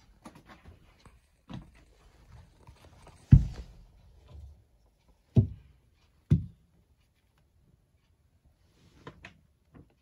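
A few dull thumps and light knocks, the kind made by handling and bumping around in a cramped cabinet space. Three heavier thumps come in the middle, with scattered lighter taps before them and a few more near the end.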